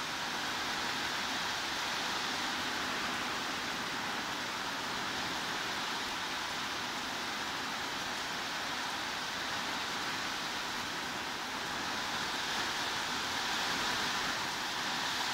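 Heavy rain falling as a steady, even hiss, swelling slightly near the end.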